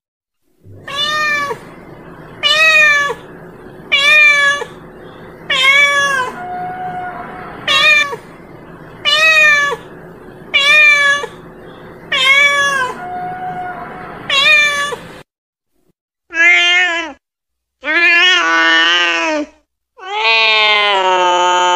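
A domestic cat meowing again and again, a short meow about every second and a half. After a pause about fifteen seconds in come three longer, lower meows, the last one drawn out.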